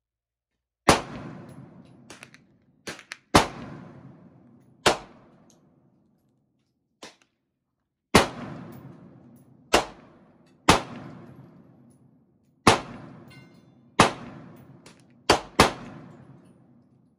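About ten gunshots from a handgun, fired one at a time at an irregular pace, two of them in quick succession near the end. Each is a sharp crack followed by a long fading echo, with a few fainter short cracks in between.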